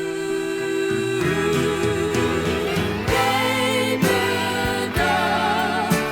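A late-1970s Japanese pop recording playing: a full band with a beat and a sung melody. It opens on a long held note, then the melody moves on with vibrato.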